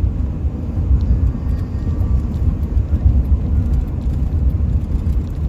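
Steady low rumble of road and tyre noise heard inside a car cabin at highway speed.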